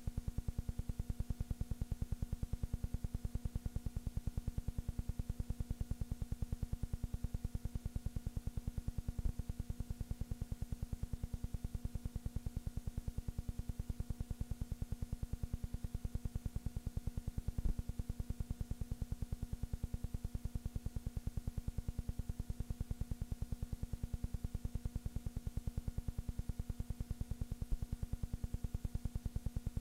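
Steady low electrical hum and buzz with a fast, even pulsing, with a few faint clicks.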